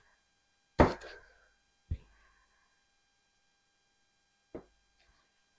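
Three separate sharp knocks of a knife on a cutting board while a jalapeño is cut: the loudest just under a second in, a lighter one about a second later, and a faint one near the end.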